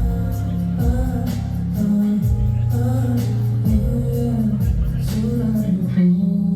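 Live band music from the stage, loud through the venue's PA, with heavy deep bass, regular drum hits and a sung melodic line.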